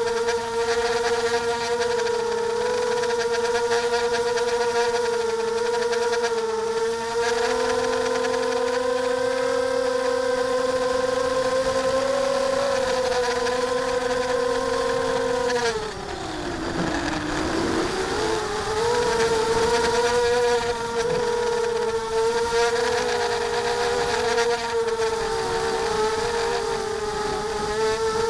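Motors and propellers of a small FPV multirotor drone in flight, a steady whine with several overtones. About sixteen seconds in the pitch drops sharply, then climbs back within a couple of seconds and holds steady again.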